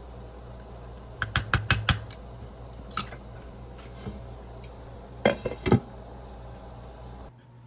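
A metal ladle clinking against a cooking pot: a quick run of clicks about a second in, then single clinks, then a glass pot lid clattering into place around five seconds in. A steady low hum runs under it and cuts off near the end.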